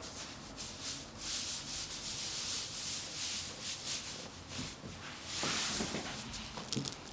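Hands rubbing and pressing over a patient's back and neck during a chiropractic palpation: several soft brushing strokes, the longest and loudest about five and a half seconds in.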